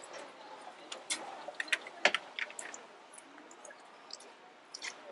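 Scattered, irregular ticks and drips of light rain over a steady outdoor hiss.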